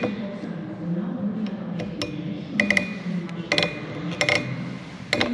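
Light metallic clinks and taps of hand tools against a small steel part clamped in a bench vise, each with a brief ring. They come in four short clusters in the second half.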